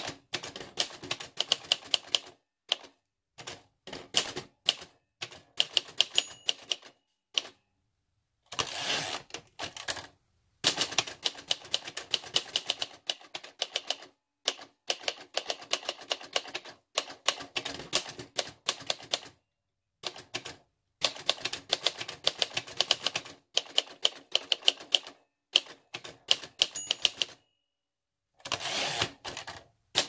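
Typing on a 1966 Singer Professional T-62 manual typewriter (a rebadged Royal Safari): runs of quick key strikes, each typebar clacking against the platen, broken by short pauses. Twice, about nine seconds in and near the end, there is a denser rattle lasting about a second as the carriage is returned for a new line.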